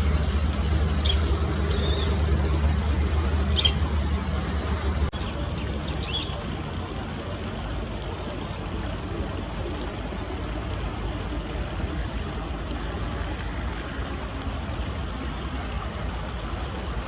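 Outdoor ambience: a steady rushing noise, with a low motor-like hum for the first five seconds that stops abruptly. A few short, high bird chirps come in the first six seconds.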